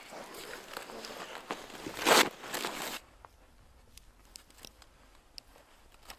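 Rustling of a heavy parka and gloves as a gas mask is pulled on and its head strap tightened, with one loud burst of noise just after two seconds. About three seconds in it drops suddenly to quiet with a few faint clicks.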